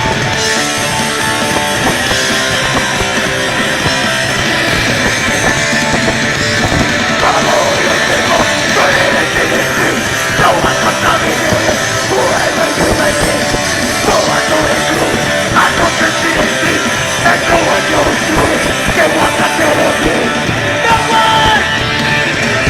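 Live punk rock band playing loudly, with guitars and drums, and shouted singing through the middle part.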